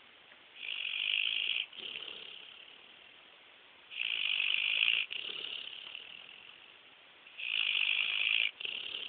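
A pit bull snoring in her sleep: three high-pitched snores about three and a half seconds apart, each lasting about a second and cutting off sharply, followed by a quieter breath that fades away.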